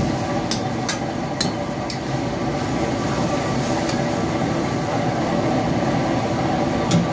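Busy restaurant kitchen background: a steady low rumble, with four sharp clicks in the first two seconds and another near the end.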